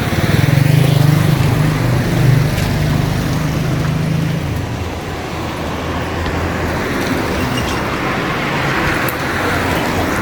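A motor vehicle's engine running with steady road noise; the engine hum is stronger for the first four or five seconds, then settles lower.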